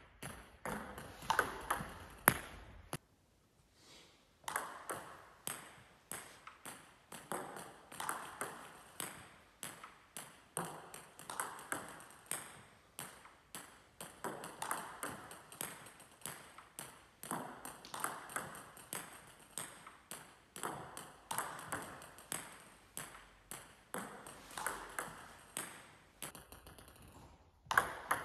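Table tennis serve practice: each serve is a quick cluster of sharp clicks from the bat striking the ball and the ball bouncing on the table. A new serve comes about every three seconds, with a short pause a few seconds in.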